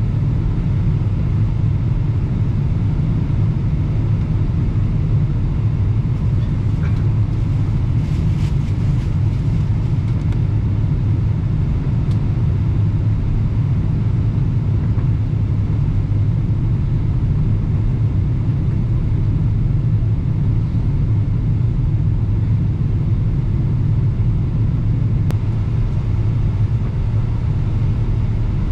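Steady low cabin drone inside a Boeing 777-300ER in flight, from its engines and the airflow over the fuselage, with a few faint ticks about eight to ten seconds in.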